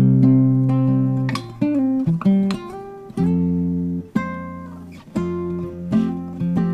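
Background music on acoustic guitar: plucked and strummed chords, a new chord about every second, each ringing and fading.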